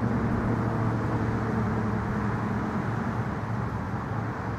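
Steady low hum of a vehicle engine running nearby, over outdoor background noise; the hum fades about halfway through.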